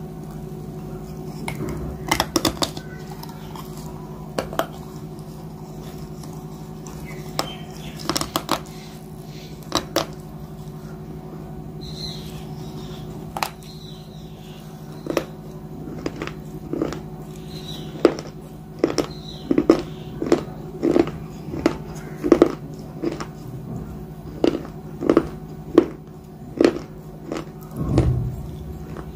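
Close-mouthed eating sounds of someone biting and chewing grey chalky chunks: short, sharp crunches, scattered at first, then about one a second through the second half, over a steady low hum.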